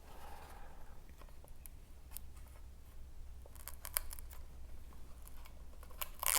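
Backing liners being peeled off adhesive hook-and-loop (Velcro) mounting strips: faint scattered crinkles and small clicks, with a few quick clusters about two, four and six seconds in.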